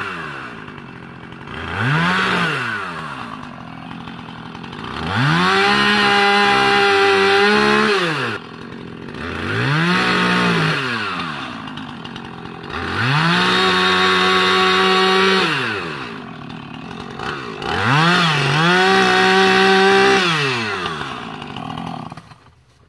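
Husqvarna Rancher 450 two-stroke chainsaw revving up and dropping back toward idle five times while bucking a felled tree. Three of the rev-ups are held at full throttle for about two seconds each, as the chain runs through the log; the other two are brief blips. The saw falls quiet near the end.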